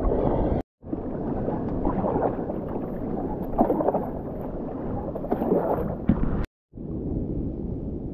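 Water sloshing and gurgling around a kayak's hull and paddle blades as it is paddled across calm sea, with a few brief swells of splashing. The sound cuts out completely for a moment twice.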